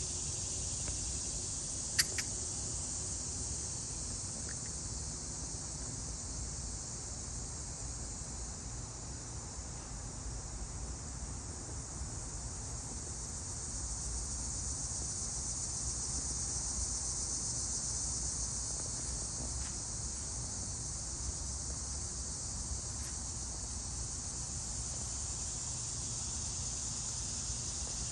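Steady high-pitched insect chorus over a low rumble, with a single sharp click about two seconds in.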